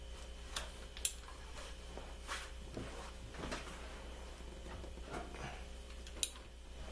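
Hand tools being handled on a car engine: a socket wrench and socket clicking against metal, three sharp metallic clicks (two close together about a second in, one near the end) with softer scraping and rustling between them.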